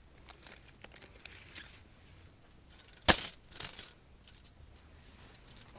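Handling noise: scattered small clicks and rustles, with one sharp knock and a short rattle about three seconds in.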